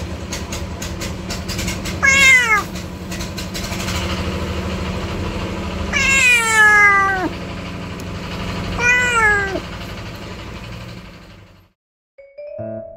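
Mother tabby cat with newborn kittens meowing three times, each call sliding down in pitch; the middle call is the longest and loudest. Piano music starts near the end.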